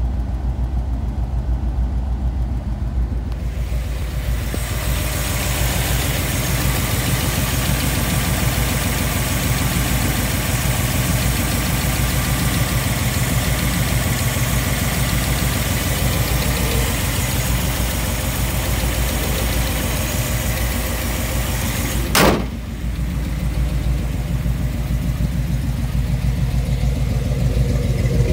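Ford Bronco's V8 idling steadily at about 1,000 rpm. A few seconds in a broad hiss joins the engine sound at the open engine bay. A single sharp knock comes about two-thirds of the way through.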